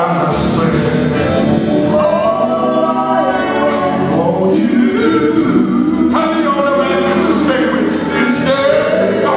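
Male gospel singer singing live into a handheld microphone through a PA, holding and bending long notes over a musical backing.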